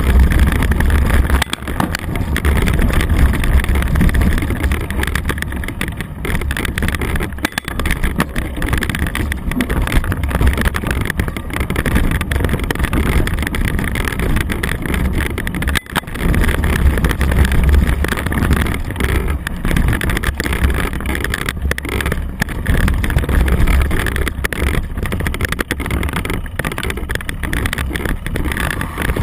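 A mountain bike's knobby tyres rolling fast over a leaf-covered dirt trail, heard as a continuous low rumble of ride and wind noise on the bike-mounted camera, broken by frequent knocks and rattles as the bike hits bumps.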